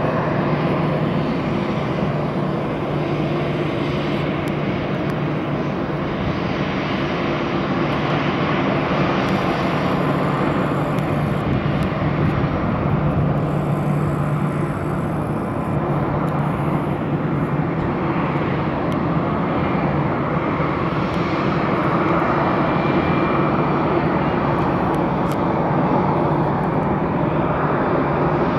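Volotea Airbus A319-112's twin CFM56 turbofan engines running at taxi power as the jet rolls past, a steady jet hum over a low drone.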